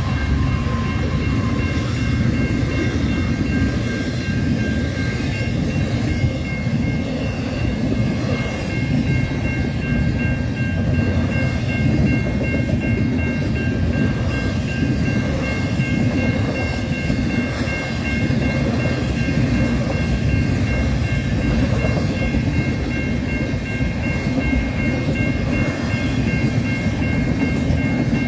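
Double-stack intermodal freight train's container well cars rolling past, a steady loud rumble with several steady high-pitched tones held above it.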